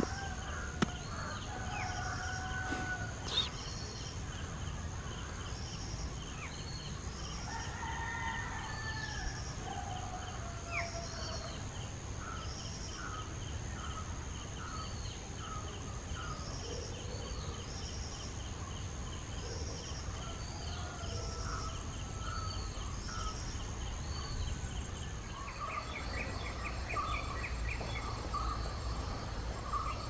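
Indian grey hornbills calling with long squealing notes in the first third, among other birds' repeated high whistled notes and short chirps. A quick run of short notes comes near the end, all over a steady high insect drone.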